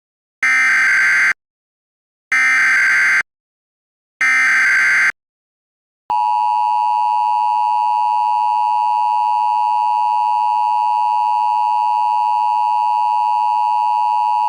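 Emergency Alert System alert tones: three short SAME header data bursts about two seconds apart. About six seconds in the long, steady EAS attention tone begins; it announces that an emergency message is about to be read.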